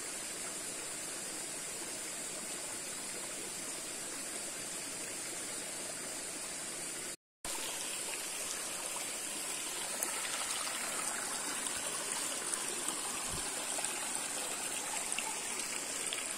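Water of a small hill stream flowing and trickling steadily. The sound cuts out for an instant about seven seconds in.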